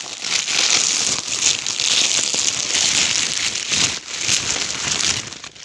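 Plastic packaging crinkling and rustling as it is handled, a dense run of crackles that barely lets up and eases off near the end.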